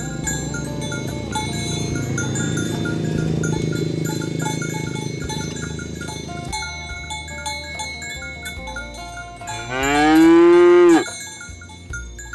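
A cow moos once, loud and long, about ten seconds in, its pitch rising and then dropping sharply at the end. Light background music with chime-like notes plays throughout.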